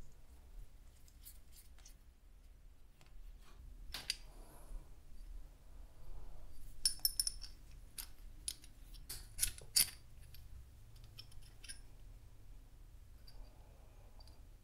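Small metal-on-metal clicks and clinks from a steel hex nut, bolt and twist drill bit being handled and fitted together. A few louder clinks ring briefly, about seven and ten seconds in.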